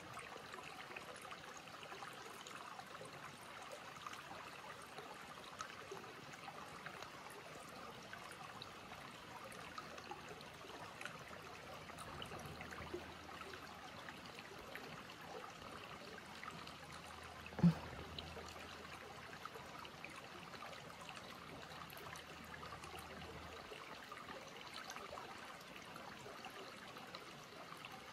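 Faint steady trickling of creek water running over rocks. A single short thump sounds about two-thirds of the way through.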